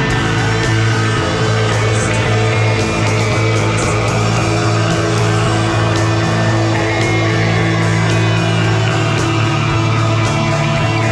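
Psychedelic rock band playing, loud and dense: guitars over a held low drone, with drums and cymbals struck steadily.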